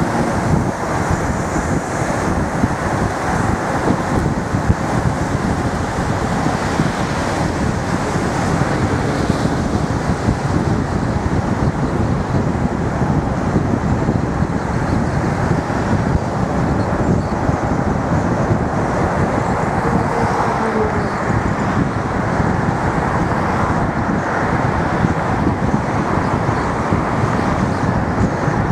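Steady road noise of a car being driven: tyre and engine noise at a constant level, with a wind-like rush.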